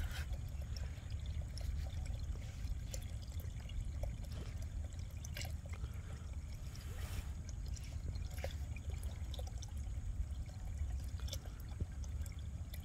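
Water pouring and trickling, with scattered small splashes over a steady low rumble.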